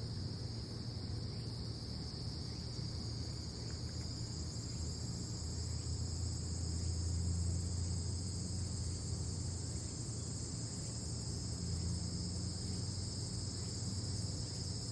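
Steady, high-pitched insect chorus, crickets chirring without a break, over a low steady rumble that swells a little about halfway through.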